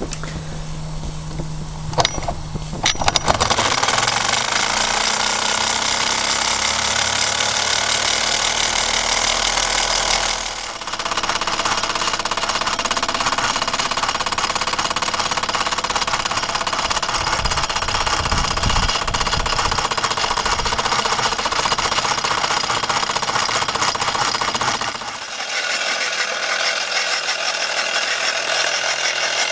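Wilesco D415 model steam tractor's small steam engine running fast under steam, a rapid, dense chuffing rattle that starts about three seconds in. It is noisy running that the owner was told is normal for Wilesco kits.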